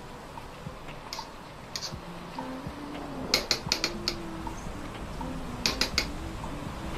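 Sharp taps of a utensil against the metal pan of paella as the rice is stirred: two single taps, then a quick run of about five past the middle and another of about four near the end, over faint background music.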